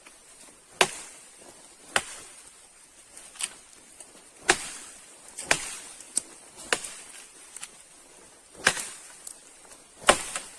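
Wood being chopped: about eight sharp chopping strikes, spaced irregularly one to two seconds apart.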